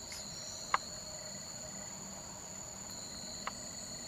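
Steady, high-pitched drone of insects in the forest canopy, holding two even tones. A short, sharp click cuts in about three quarters of a second in, and a fainter one near the end.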